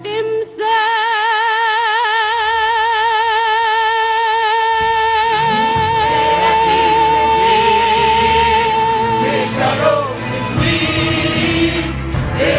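A woman singing one long held note with a steady vibrato for about nine seconds. A choir comes in beneath her about five seconds in and carries on after her note ends.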